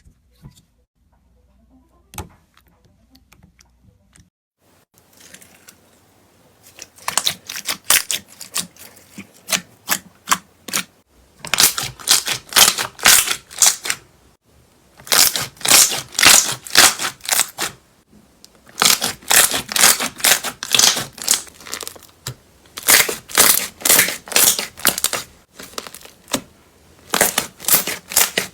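Crunchy slime squeezed and pressed by hand, giving a dense crackling. It starts about five seconds in and comes in runs of two to four seconds with short pauses between them.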